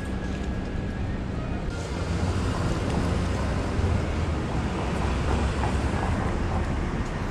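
Steady wind rumble on the microphone over street traffic noise, growing brighter and a little louder about two seconds in.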